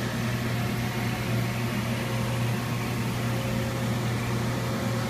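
Steady low machine hum with an even hiss of water spraying against glass.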